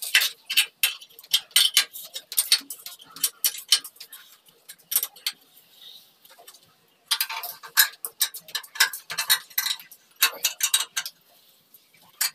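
A spanner clicking and scraping on the steel hook bolt of a wall bracket while an electric geyser is being mounted: rapid runs of metallic ticks, with a short pause around the middle.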